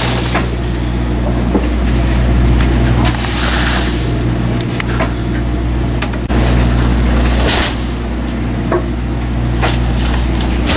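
Boat's engine running with a steady low hum, with scattered knocks and thuds as ice and fish are dropped into a cooler.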